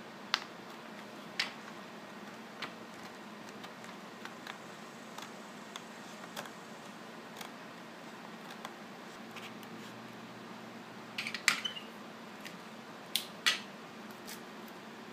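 Scissors snipping through a paper template: short, sharp cuts about once a second, with a few louder clicks near the end.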